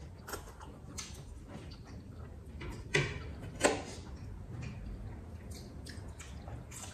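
Close-up eating sounds of people eating: chewing and small wet mouth clicks, with two louder sharp clicks about three and three and a half seconds in.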